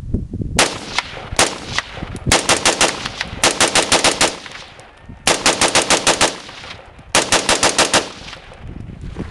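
Bushmaster XM15 AR-15 carbine firing: a few single shots, then four fast strings of about six to eight shots each at roughly eight shots a second. This is rapid semi-automatic fire.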